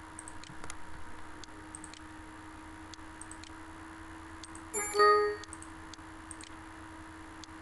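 Faint mouse clicks now and then over a steady low hum. About five seconds in, a single Windows system alert chime rings out, the sound that accompanies a SolidWorks error dialog.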